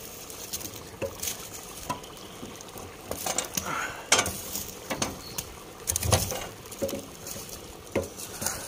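Wood fire crackling and popping in a metal stove's firebox, with a few sharper knocks as a wooden stick shoves the burning logs.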